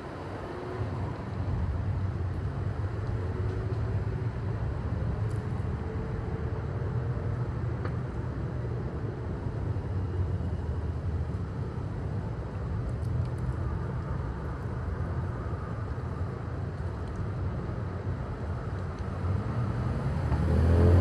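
A motor vehicle's engine running, a steady low rumble that swells slightly about a second in and holds.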